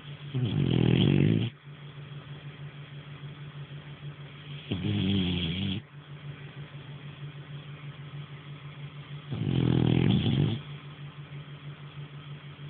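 French Bulldog snoring: three loud snores of about a second each, some four and a half seconds apart, over a steady low hum.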